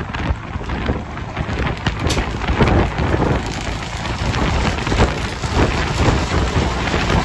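Wind rushing past an open car window and tyre and road noise at highway speed, alongside a double-trailer livestock truck. A dense hiss full of small crackles with a low rumble underneath.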